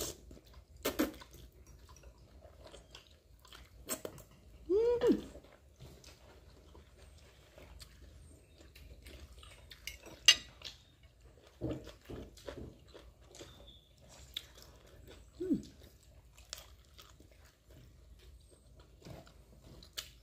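Close-up chewing and mouth sounds of someone eating adobo-style stir-fried noodles and chicken, with scattered wet clicks and smacks and a couple of brief pitched mouth sounds.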